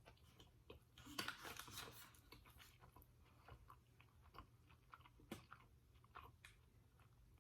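Close-up eating sounds: chewing with scattered crisp crunches and mouth clicks, faint, busiest about a second in.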